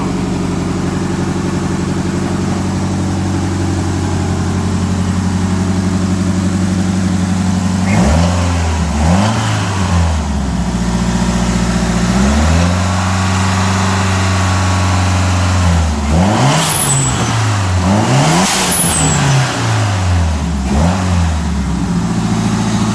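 Nissan 240SX (S13) engine idling steadily, then revved in a string of blips from about a third of the way in, one rev held up for a few seconds, before settling back to idle near the end.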